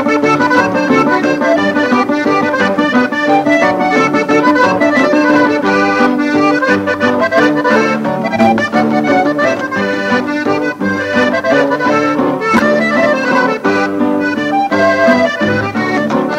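Diatonic button accordion playing a lively conjunto redova instrumental, backed by guitar and upright bass, on an old recording.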